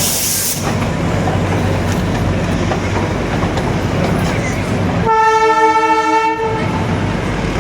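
Darjeeling Himalayan Railway toy train running with a steady rumble, with a short hiss at the very start. About five seconds in it sounds one horn blast lasting about a second and a half.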